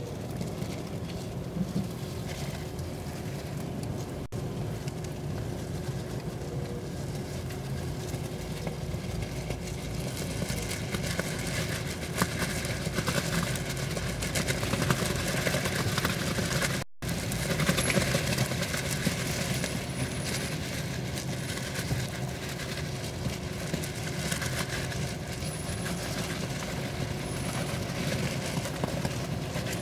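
Steady outdoor rumble of vehicle engines running, mixed with wind noise. The sound drops out briefly about seventeen seconds in at an edit cut.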